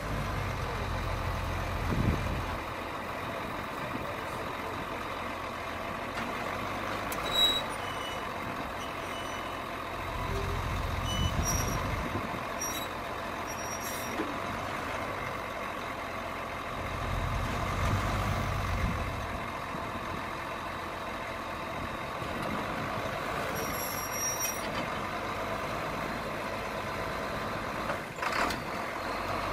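John Deere 4440 tractor's turbocharged six-cylinder diesel engine running steadily while the tractor moves and works its front loader, the low rumble swelling for a couple of seconds three times. A few short high chirps sound in between.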